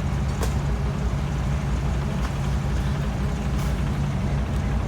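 Vehicle engine running steadily at low speed, a low, even drone while the vehicle is slowly backed up.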